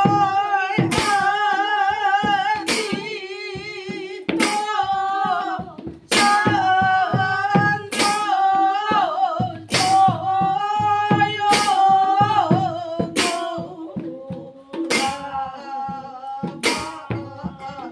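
Group devotional singing with vibrato, accompanied by a double-headed barrel drum played with quick hand strokes and pairs of small brass hand cymbals clashed together about every second and a half.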